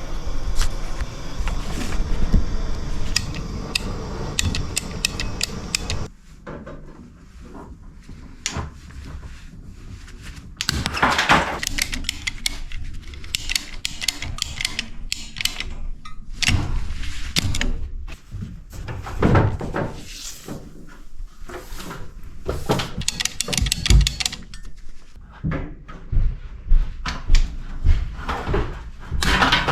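Irregular knocks, clicks and clatter of tools and pipe fittings being handled, over a denser steady noise that stops about six seconds in.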